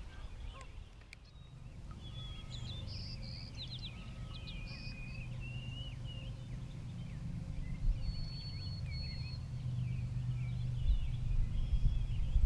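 Birds calling and singing, a scatter of short chirps and whistles throughout, over a low steady rumble.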